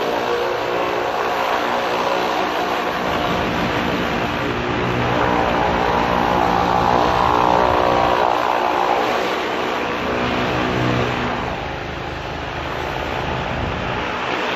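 Engine-driven high-pressure cleaner running steadily, its water jet hissing as it sprays. The spray grows louder through the middle and eases off about twelve seconds in.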